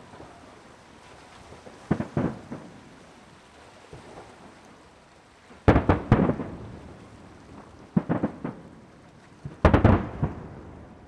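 Aerial firework shells bursting: four clusters of booms about two seconds apart, each a quick run of several bangs trailing off in a rumbling echo.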